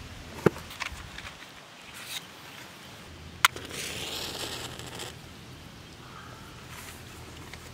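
A sharp click about half a second in, then a wooden match struck about three and a half seconds in, its head flaring with a hiss that lasts about a second and a half.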